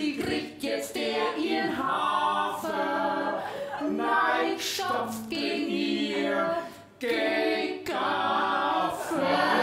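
A man and two women singing a song together, with a short break between phrases about seven seconds in.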